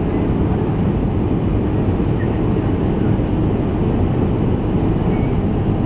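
Steady cabin noise inside an Airbus A320 airliner during descent: a constant low rumble of engines and rushing air, even throughout.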